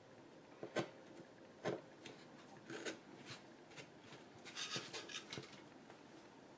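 Small chisel cuts in high-density urethane foam, with a few sharp clicks as chips pop out. About four and a half seconds in comes a short brushing, rubbing sound as a hand sweeps over the foam carving and turns it on the mat.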